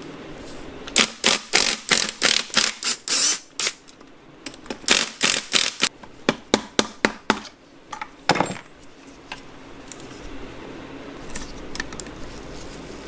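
A hammer striking a screwdriver used as a punch on an NP242 transfer case's output-end housing. The blows come in two quick runs of about a dozen sharp strikes each, about four a second, with one more strike a little later.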